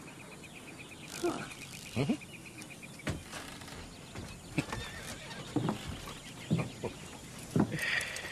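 Horses stirring in harness and under saddle: hooves shifting on dirt and short snorts, several about a second apart. A high pulsing trill sounds through the first three seconds.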